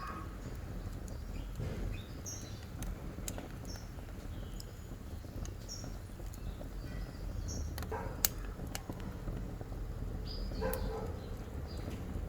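Wood fire burning in the firebox of a wood-fired stove: a steady low rumble with scattered sharp crackles, the loudest about 8 s in. Short animal calls chirp now and then in the background.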